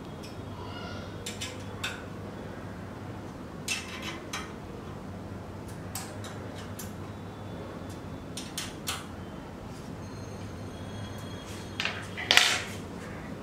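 Light metallic clicks and clinks of a hex key turning the bolts that fasten a steel leg bracket to an aluminium extrusion, over a steady low hum. A louder clatter comes near the end.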